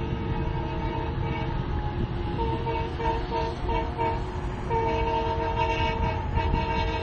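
Locomotive horn: a run of short blasts starting about two and a half seconds in, then one long steady blast from about five seconds in. It sounds over a steady low rumble.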